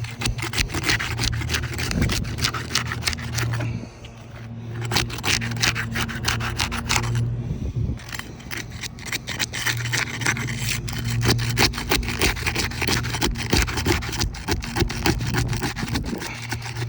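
Scraping and crackling of an asphalt shingle being worked loose and pried up from the roof, in long stretches with brief pauses about four and eight seconds in. A steady low hum runs underneath.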